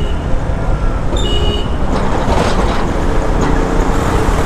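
Motorcycle riding through traffic, with steady wind and engine rumble on the rider's microphone. About a second in, another vehicle's horn toots briefly.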